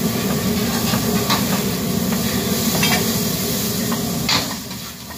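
Commercial wok burner running with a steady roar under sizzling, steaming food. A metal ladle scrapes and knocks against the wok a few times, and the roar drops near the end.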